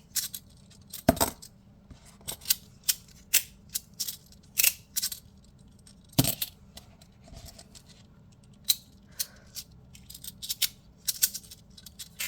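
Plates of the original Tectonix 3D-printed magnetic fidget slider clicking and clacking irregularly as they are slid and snapped while attempting laddering, with two heavier knocks, about a second in and about six seconds in. The magnets are weak, so the plates do not hold together well.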